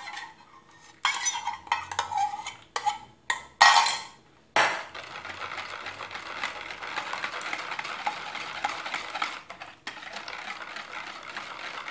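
Wire whisk beating a thin egg-and-milk batter in a bowl: a steady, fast swishing with the wires ticking against the bowl, starting about four and a half seconds in and running on with one brief pause. Before it come a few short clinks and scrapes of utensils against the bowl as the melted butter goes in.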